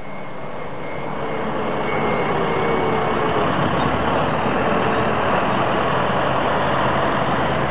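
A farm tractor's diesel engine running as the tractor drives slowly toward the listener, getting a little louder over the first couple of seconds and then holding steady.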